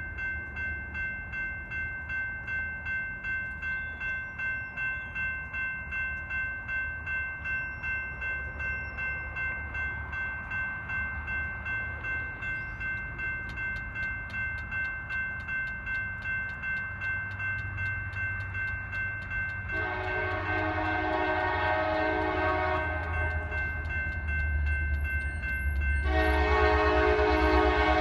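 Grade-crossing warning bell ringing steadily in a rhythmic pulse as a diesel freight train approaches, its low rumble growing louder. The lead locomotive, an NS SD70ACe, sounds its horn in two long blasts, the first about twenty seconds in and the second starting a few seconds later and still sounding at the end.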